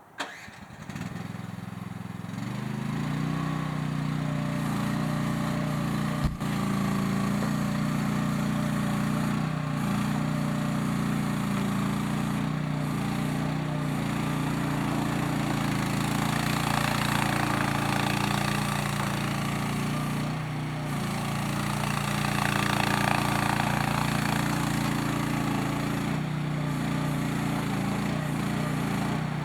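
Small engine of a CFG industrial mini excavator starting up within the first two seconds, then running steadily. One sharp knock comes about six seconds in.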